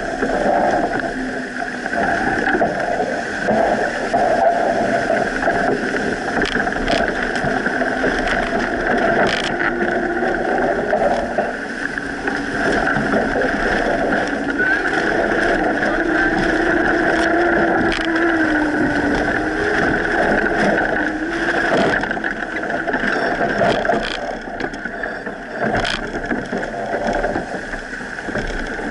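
Steady rush of wind and water along a sailboat's hull as it sails hard under spinnaker, heeled far over in a gust, with a few sharp knocks from the boat now and then.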